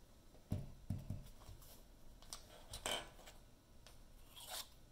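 A thin molded epoxy-composite tube handled on a tabletop: a few soft knocks, then crackling snaps as the laminate is bent at its conical joint until it cracks. The loudest snap comes about three seconds in.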